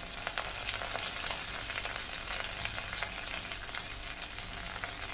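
Tempering sizzling in hot oil in a kadai, with fresh curry leaves just added to cumin, black sesame seeds, garlic and green chillies: a steady sizzle with frequent small crackles and pops.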